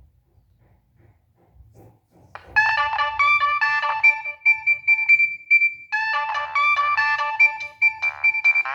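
A Nokia 6585i playing a polyphonic ringtone, a quick synthesized melody of bright, rapidly repeated notes. It starts about two and a half seconds in, after a quiet pause with only a faint low hum.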